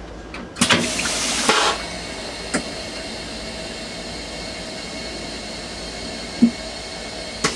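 Compressed-air vacuum toilet starting its flush cycle at the push of the button. A sudden rush of water and air about half a second in lasts about a second as rinse water enters the bowl. A steady hiss follows.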